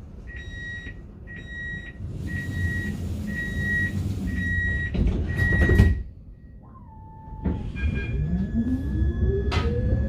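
Tram door warning beeps, six high beeps about one a second, ending with a thump as the doors shut. Then the tram's electric traction motor whines, rising steadily in pitch as it pulls away.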